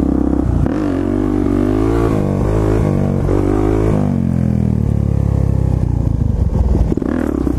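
Small single-cylinder SSR pit bike engine revving up and down several times, then running more steadily at a lower pitch.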